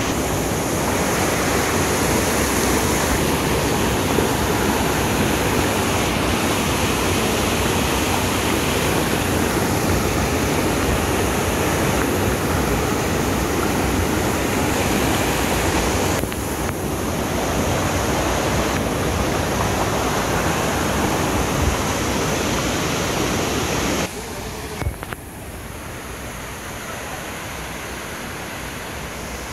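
Rushing water of a rain-swollen rocky hill stream cascading over boulders, a steady loud rush. It dips briefly about halfway through and is quieter near the end.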